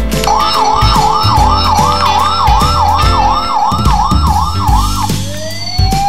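Toy ambulance's electronic siren warbling quickly, about three up-and-down sweeps a second, then switching to a slow rising wail near the end. Background music with a steady beat plays underneath.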